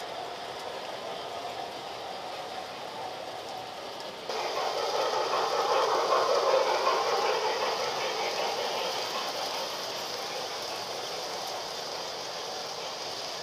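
Model trains running on layout track: a steady rolling rattle of wheels on rail. About four seconds in it suddenly gets louder and peaks as several trains pass close by, then gradually eases off.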